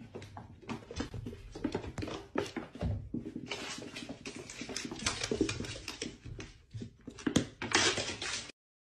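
Cat scrabbling and scuffling on a wooden floor: a run of irregular clicks, scrapes and knocks, with the loudest knocks near the end before it cuts off.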